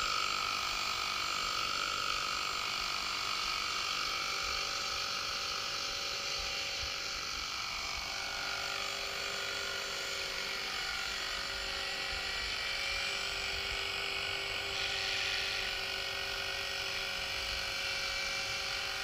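Electric Align T-Rex 450 RC helicopter hovering: a steady whine from its brushless motor and spinning rotors in several tones at once. Partway through, some of the tones slide lower in pitch.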